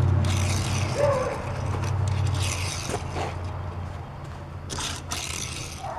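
Die-cast toy car rolling and scraping across a hard surface, with scattered light clicks over a steady low hum that fades out about halfway.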